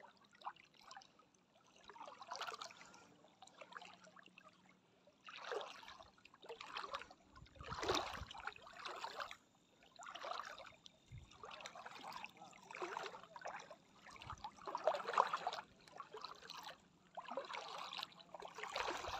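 Shallow sea water splashing and trickling in short swishes about once a second, the sound of someone wading through the shallows.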